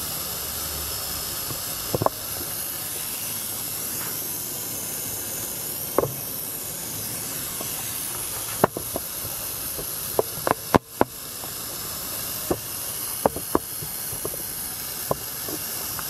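Steam and water blowing out through the newly fitted boiler blowdown valve of a 1-inch scale Markie live-steam traction engine: a steady hiss as the boiler empties under its remaining pressure after the gas has been turned off. About a dozen short sharp pops and clicks break in, most of them about ten to eleven seconds in.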